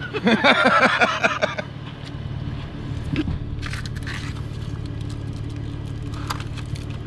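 Off-road Toyota's engine running at low speed on a dirt trail, a steady low drone. A short burst of voice sounds in the first second and a half.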